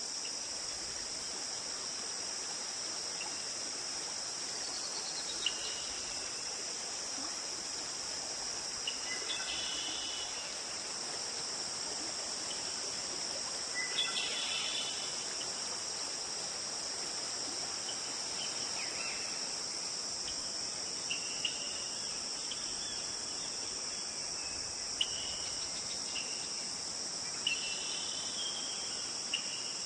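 Steady high-pitched chorus of insects, like crickets, with short higher chirps breaking in now and then, about every few seconds.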